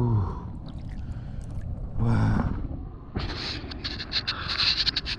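A man's two short grunts, then from about three seconds in, a gloved hand splashing and squelching in shallow muddy water on a tidal mudflat in a quick, crackling run.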